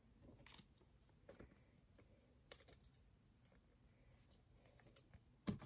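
Near silence with faint rustles and light clicks of trading cards being handled. There is a low thump near the end.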